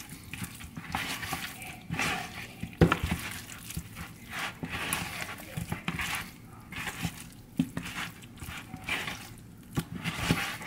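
Bare hands mixing raw, seasoned chicken wings and thighs in a plastic bowl: irregular wet squelching and slapping of meat, with small knocks against the bowl.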